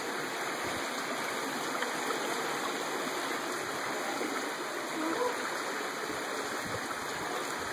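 Steady rush of a mountain creek running over rocks.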